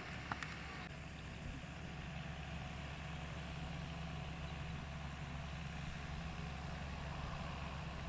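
Distant John Deere 6920S tractor's six-cylinder diesel engine running steadily under load as it pulls a plough, heard as a low, even hum. A brief sharp tick about a third of a second in.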